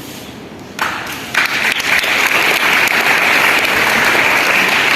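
Audience of schoolchildren clapping, starting about a second in and quickly building to steady applause.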